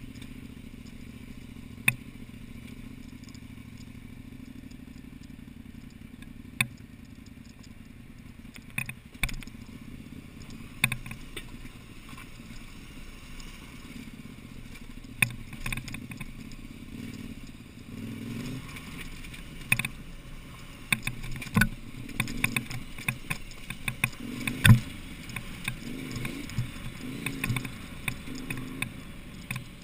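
KTM 950/990 Adventure's V-twin engine running steadily on a rocky gravel trail, with scattered clatter and sharp knocks from rocks and stones under the tyres and suspension. The knocks come more often in the second half, and the loudest comes a little before the end.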